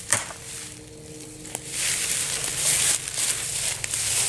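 Rustling and crunching in dry leaves and dead grass, with a few sharp knocks, as old chicken-run fencing is pulled down. The rustling grows louder about two seconds in.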